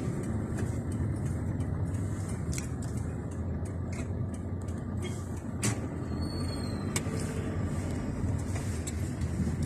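Steady low rumble of a Toyota car's engine and tyres heard from inside the cabin while driving, with a few faint scattered clicks.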